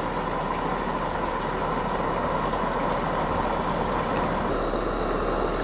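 Burner under a hot air engine's cylinder burning steadily, a continuous noise with no engine beat: the engine is still warming up and not yet running.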